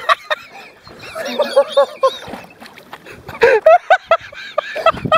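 Men's voices making short non-word vocal sounds, with no clear words, loudest about three and a half seconds in and again near the end.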